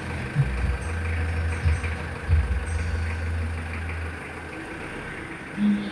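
A Mitsubishi L300 pickup's engine running, with a low steady hum and a few light knocks; the hum drops away about four seconds in.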